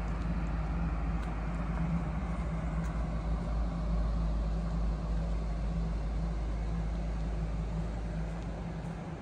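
Steady low mechanical hum and rumble, with a constant droning tone, dipping slightly near the end.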